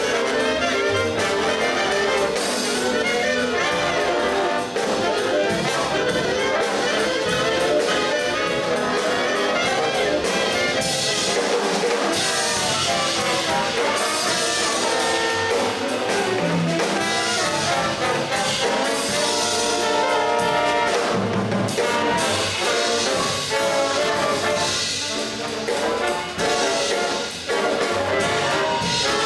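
Jazz big band playing: saxophone, trombone and trumpet sections with upright bass, piano, guitar and drum kit.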